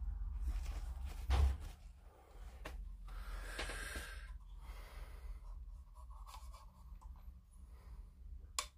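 Quiet handling sounds of a fine paintbrush working in a small paint pot, with a bump about a second and a half in and a sharp click near the end.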